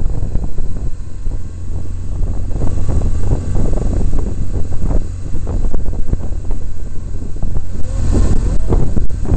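Motorcycle engine running at low road speed, heard under heavy wind rumble and buffeting on the microphone.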